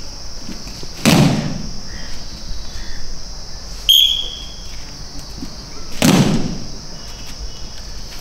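A squad of judoka doing back breakfalls (ushiro ukemi) together, their bodies and arms slapping the mats in two heavy, slightly ragged thuds about five seconds apart. A short whistle blast comes about two seconds before the second thud. A steady high insect buzz runs behind.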